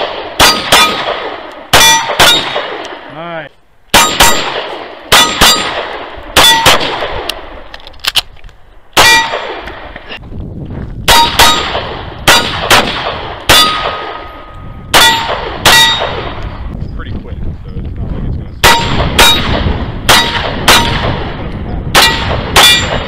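Handgun shots fired in quick strings at steel silhouette targets, each hit answered by the steel's bright ringing ding. About two dozen shots come in groups of two to five, with short pauses between the strings.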